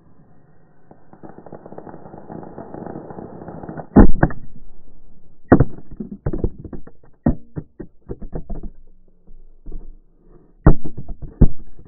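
Aerial firework cake going off, slowed down: a swelling hiss, then a string of deep, drawn-out bangs, the loudest about four seconds in, more following over the next five seconds and two more near the end.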